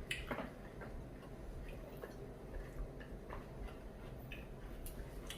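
Faint, irregular light clicks of eating utensils against dishes, over a steady low hum.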